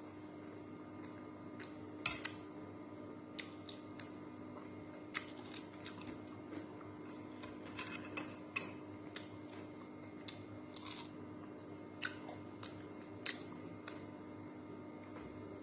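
Eating crisp-fried galunggong (round scad) by hand: scattered sharp crunches and clicks of the fish and of a spoon against a glass bowl of vinegar dip, the loudest about two seconds in.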